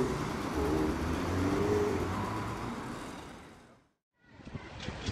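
Street traffic: vehicle engines running and passing. The sound fades out to a brief silence about four seconds in, then gives way to a faint background of another recording.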